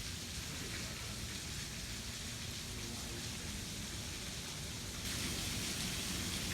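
Waterfall: a steady rush of falling water, louder and brighter from about five seconds in.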